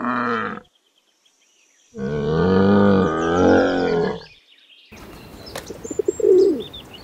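Bactrian camel calling: one call ends shortly after the start, then a longer pitched call of about two seconds follows. Near the end a pigeon coos briefly over low background hiss.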